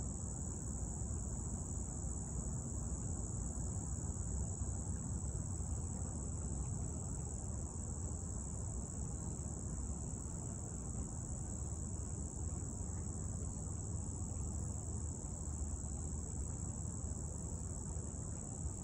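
Crickets singing in a continuous high-pitched drone that never breaks, over a low steady rumble.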